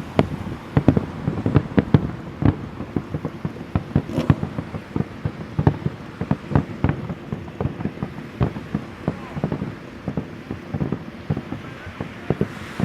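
Starmine fireworks barrage: a rapid, irregular string of booms and bangs from shells bursting in quick succession, several a second.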